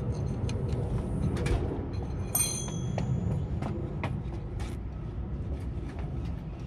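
Scattered light metallic clicks from a 14 mm ratcheting box wrench and the brake caliper bolt it is loosening, which is then turned out by hand. A short ringing metal clink comes about two and a half seconds in, all over a steady low rumble.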